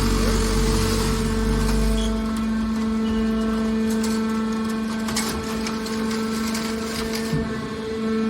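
Scrap car baler's power unit running with a steady hum. A heavy low rumble drops away about two seconds in, and a few short clicks and knocks come later.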